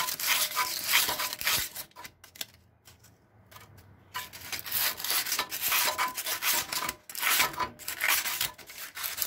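Sandpaper scrubbing back and forth over the rusty steel flywheel and magnet of a John Deere riding mower engine, cleaning off the rust. The strokes stop for about two seconds near the middle, then resume.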